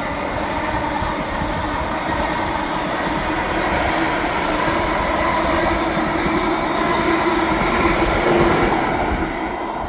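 Greater Anglia electric multiple unit passing close by: a steady loud rush and rumble with a faint steady whine, fading near the end.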